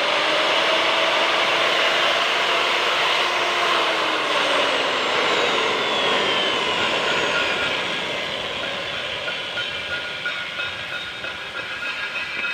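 Magnetic drill's electric motor whining, its pitch falling about four seconds in as it spins down, over a steady hiss that slowly fades toward the end.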